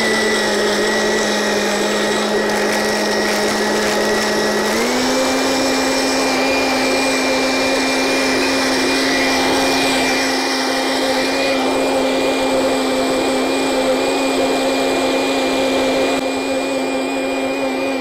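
Electric blender running steadily, blending kale leaves, almonds, lime, frozen banana and water into a smoothie. Its motor pitch sits slightly lower at first, then steps up about five seconds in and holds steady.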